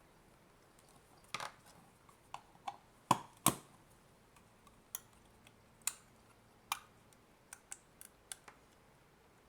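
Irregular sharp clicks and light knocks of hard plastic parts being handled: the pieces of an opened Nintendo Switch AC adapter's casing. The two loudest clicks come close together about three seconds in.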